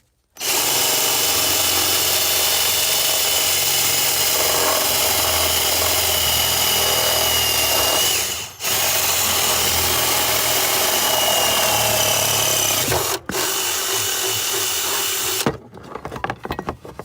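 Power drill with a dull 3/8-inch bit boring a stud hole through the steel firewall, running steadily with a high whine that sags slightly under load. It stops briefly twice and cuts off near the end, followed by a few clicks and scrapes.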